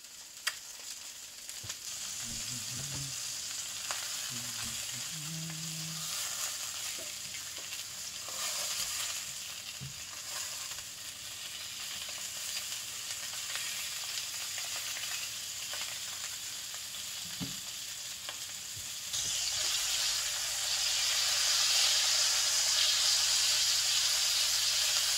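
Sausages sizzling as they brown in oil in a cast iron pan. The sizzle gets louder about three quarters of the way through.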